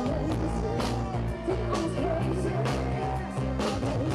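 Live rock band playing: a woman sings over electric bass and a steady beat.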